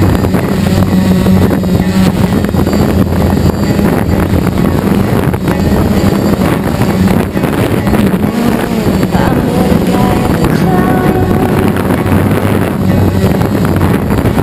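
DJI Phantom quadcopter's electric motors and propellers buzzing loudly close to the microphone, with the pitch shifting as the throttle changes in flight.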